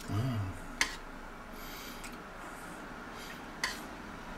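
A small metal spoon stirring thick soup in a stainless steel pot, clinking sharply against the pot twice, about a second in and near the end. A brief low hum at the very start.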